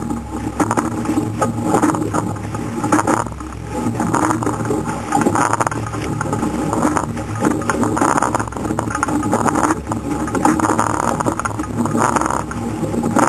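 Wind buffeting the microphone and water rushing along the hull of a surf boat under oars, surging about every second and a half with the rowing strokes.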